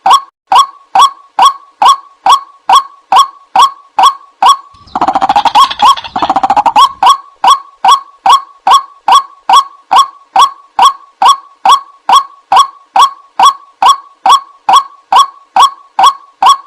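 White-breasted waterhen (ruak-ruak) lure call: a loud, monotonous series of short calls, about two a second, each dipping slightly in pitch. About five seconds in, a faster, rattling phrase runs for about two seconds before the even calls resume.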